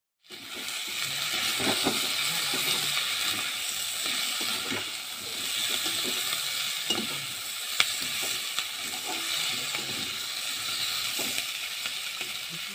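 Chopped green peppers, onion and tomato sizzling in oil in a metal wok. A slotted metal spatula stirs them, scraping and now and then clicking against the pan.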